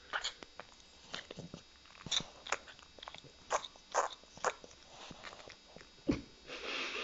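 French bulldog's mouth noises: a string of short, irregular wet smacks and clicks. Near the end comes a low thump, then a longer noisy breath.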